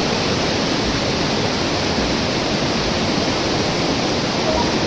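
River water rushing, a steady loud noise without breaks.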